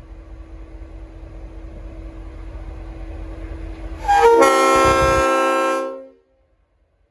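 Leslie RS5T multi-chime air horn on a V/Line N class diesel locomotive sounding one loud chord for about two seconds, starting a little over halfway in. Before it, the locomotive's diesel engine rumbles low, growing steadily louder as it approaches.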